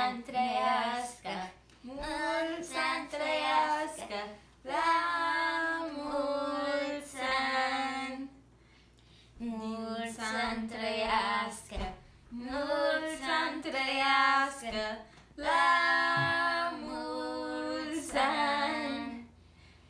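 Two children singing a birthday song unaccompanied, in held phrases with a short break about eight seconds in.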